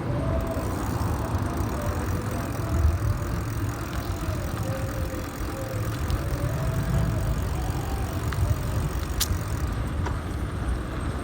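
Wind rumbling on the microphone of a camera riding along on a moving bicycle, with steady road noise, and a sharp click about nine seconds in.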